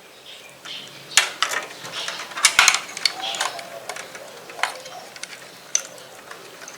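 Hands working a SATA cable and parts inside a PC tower case: irregular sharp plastic and metal clicks and rattles, with a cluster about a second in and another around the middle.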